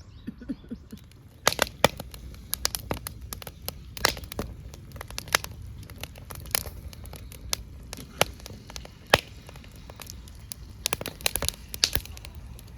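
Wood fire crackling, with irregular sharp pops and snaps that start about a second and a half in.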